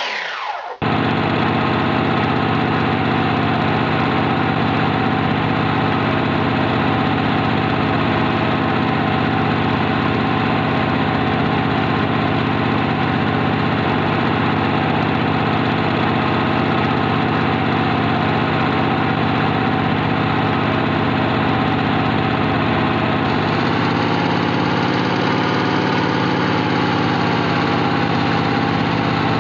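Steady mechanical motor hum with an unchanging pitch, like an idling engine, starting abruptly just under a second in; its tone shifts slightly about two-thirds of the way through.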